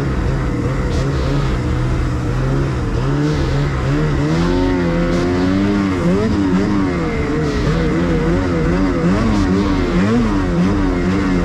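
Snowmobile engine running under the rider, steady for the first few seconds, then revving up and down repeatedly with the throttle.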